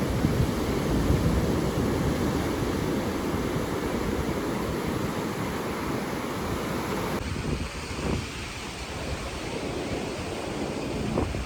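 Wind buffeting the microphone over a steady rush of water. The sound changes abruptly about seven seconds in, as at a cut.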